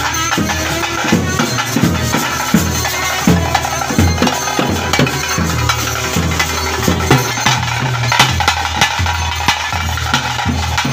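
Live ritual percussion for a bhuta kola: drums beating a steady, driving rhythm over continuous jingling, rattling metal percussion.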